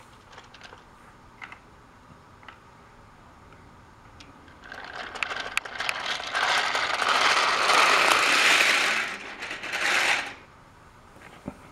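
Battery-powered TrackMaster toy train's motor and gears running as it pulls its trucks along plastic track: a few faint clicks, then a loud rattling whir rises about four and a half seconds in and cuts off suddenly about ten seconds in.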